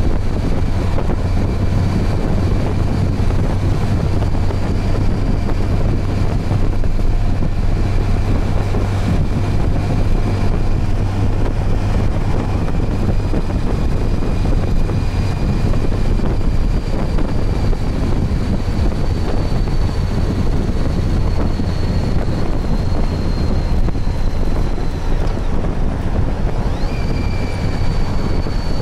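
Motorcycle riding along at a steady speed: an even engine and road drone under heavy wind noise on the microphone, with a faint high whine that slowly falls in pitch.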